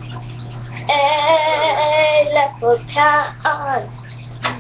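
A child singing in a high voice: one long held note with a wavering pitch starting about a second in, then a few short notes, the last one sliding down in pitch.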